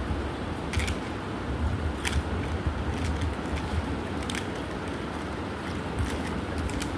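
A silver anklet being swished by hand in a plastic bowl of plain water to rinse off the silver-dip cleaner: water sloshing, with several short sharp clicks of metal against the bowl, over a steady low rumble.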